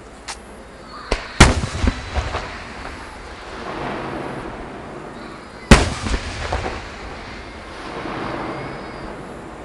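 Aerial fireworks bursting: a loud bang about a second and a half in, followed by a few smaller bangs, then a second loud bang near the middle. Each burst trails off into a rolling rumble of echo.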